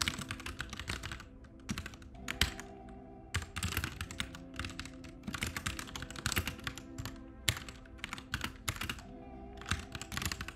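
Typing on a computer keyboard: quick bursts of keystrokes broken by short pauses, with background music underneath.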